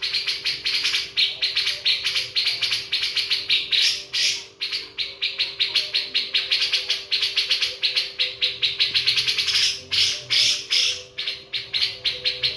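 Birds chirping in a fast, steady run of short, high chirps, several a second, with a few brief pauses.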